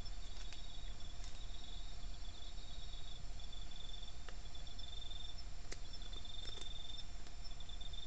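Night insects trilling high in pitch, in repeated pulsing runs that stop and start, over a steady low hiss and a thin constant tone. A few faint clicks are heard now and then.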